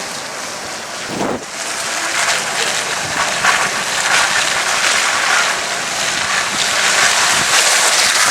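Wind rushing over the microphone in the open bed of a moving pickup truck, mixed with the truck's running noise; the rush grows louder about two seconds in.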